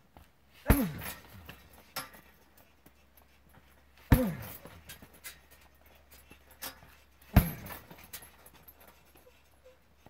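A hanging heavy punching bag being kicked: three hard thuds about three seconds apart, each followed by a brief tone falling in pitch, with a few lighter clicks in between.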